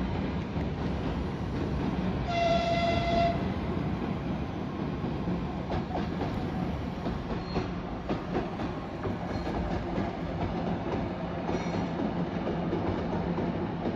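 2TE116 two-section diesel locomotive running light: a steady diesel engine drone with wheels clicking over rail joints. A high horn blast of about a second comes about two seconds in, and a fainter short toot near the end.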